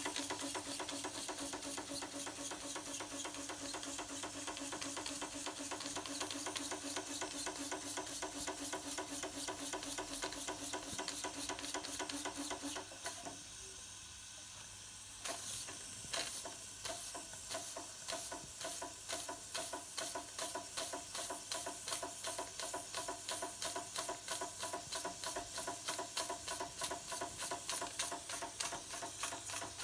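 Schoenner Vulkan live-steam model engine running on its first steam test, its slide valve not yet fully adjusted: a rapid, even chuffing of exhaust beats over a steady hiss. About 13 seconds in the sound drops away for about two seconds, then the beats return, slower and more distinct.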